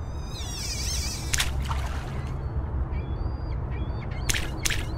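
Birds calling, with warbling and short chirps, over a low steady rumble, and a few sharp hits: about a second and a half in, then twice close together near the end.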